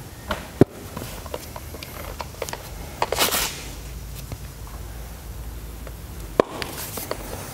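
Handling noises from a foam polishing pad and a polisher being picked up and readied: scattered light clicks and knocks, a short hiss about three seconds in and a sharp knock near the end, over a faint low hum.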